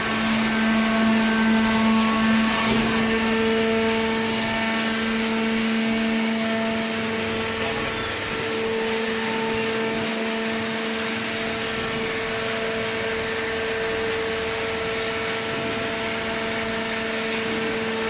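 Horizontal cardboard baler running: a steady machine hum with two held tones over an even rushing hiss.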